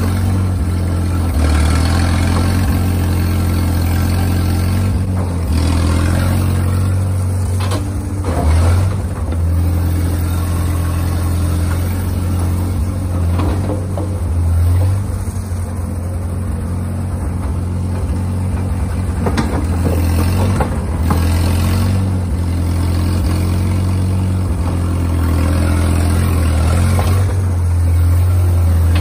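The LeRoi gasoline engine of a Schield Bantam T35 cable excavator running under load, its steady note shifting a few times as the machine digs and swings. There are several sharp knocks from the machinery.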